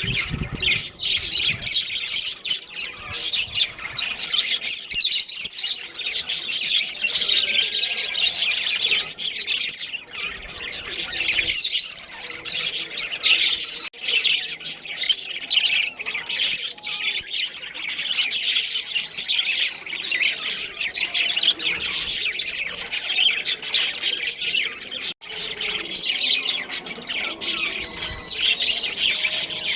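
A flock of budgerigars chattering and chirping: dense, continuous, overlapping high-pitched calls and warbles with occasional sharper squawks.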